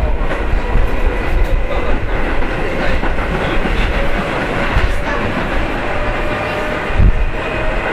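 Keio 7000 series field-chopper commuter train heard from inside the car while running: a steady rumble with rail-joint clatter and faint steady motor tones. A heavier thump comes about seven seconds in.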